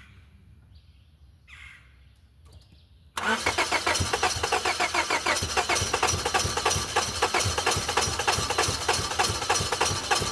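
Car engine cranking on the starter, starting suddenly about three seconds in with an even, rhythmic pulse, turning over without catching. A no-start that a newly replaced ignition coil has not cured.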